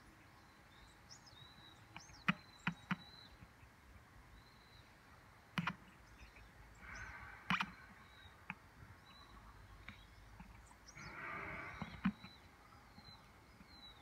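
Faint outdoor ambience with small birds giving short, high chirps again and again. Several sharp clicks and knocks, the loudest sounds, come from handling the phone held against a zoom lens and welding glass, with brief rustles about seven and eleven seconds in.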